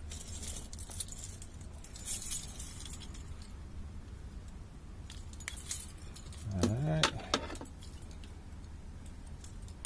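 A bunch of keys jangling in several short bursts as the cables beside them are handled, over a steady low hum, with a brief murmured voice about two-thirds of the way through.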